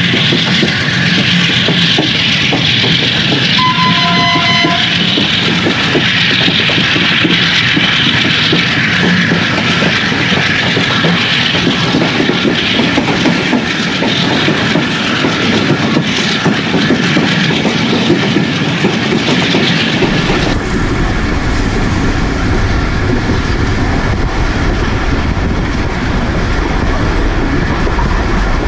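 Passenger train running, its wheels clattering over the rail joints under a steady rolling noise. A short two-note horn sounds about four seconds in. About twenty seconds in the noise suddenly turns deeper and duller.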